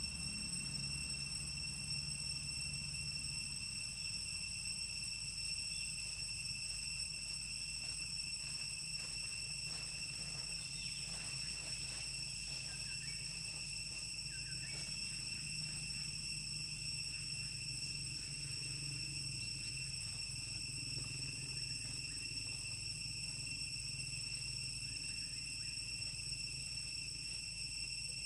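Insects droning in the forest: one steady, unbroken high-pitched tone with a low hum underneath.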